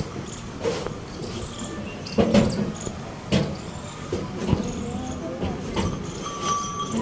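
Ox-drawn bullock cart rolling over a sandy track, with irregular wooden knocks and rattles from the cart and yoke, and a short ringing tone near the end.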